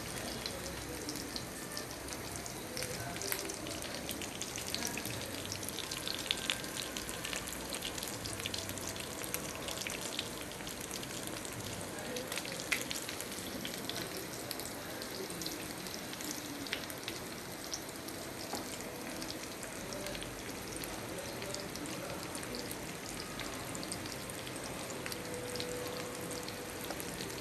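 Semolina-coated mackerel sizzling and crackling in hot oil in a frying pan, a steady hiss with frequent sharp pops of spattering oil.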